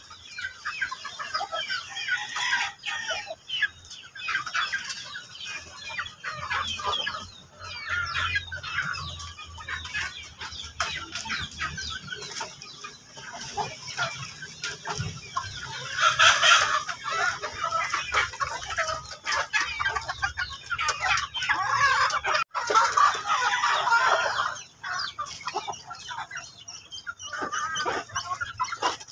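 Backyard chickens clucking continuously, with a rooster crowing loudly about halfway through and again a few seconds later.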